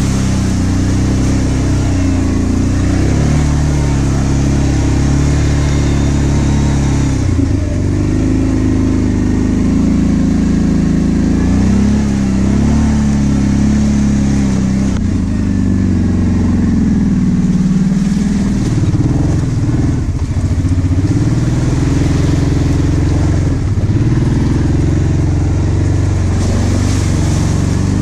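Kawasaki KVF 750 Brute Force ATV's V-twin engine running under way, its pitch rising and falling again and again as the throttle is opened and eased off.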